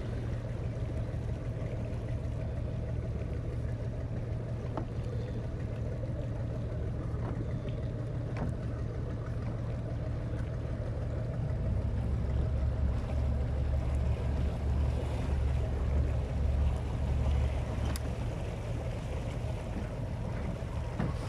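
Motor of a small inflatable boat running steadily at low speed, a low rumble that grows louder from about twelve seconds in until near the end. A few faint knocks sound over it.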